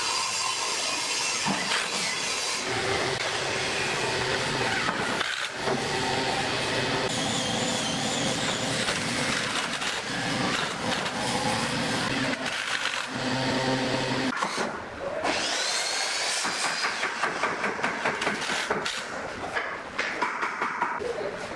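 Cordless Makita impact driver driving screws into pine pallet wood, running in repeated spells with short breaks between screws. One spell opens with a rising motor whine as the driver spins up.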